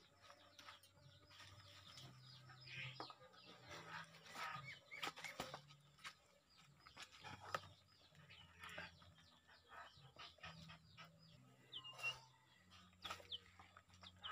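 Near silence with faint bird chirps, a couple of them near the end, and soft scattered clicks and rustles from hands picking seeds out of jackfruit pulp.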